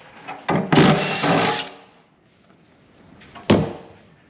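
Cordless drill-driver running in short bursts and then about a second at a stretch, backing out bolts that hold a table saw's table. A single sharp knock follows near the end.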